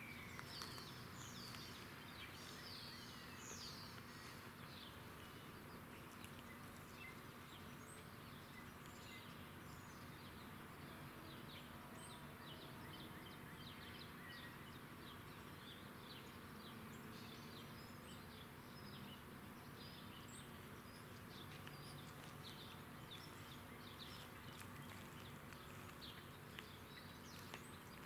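Faint outdoor background with many small birds chirping in quick, short notes.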